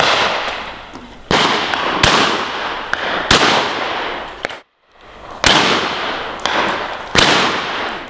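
Shotguns firing at high driven game birds: about six loud, irregularly spaced shots, each echoing away for about a second.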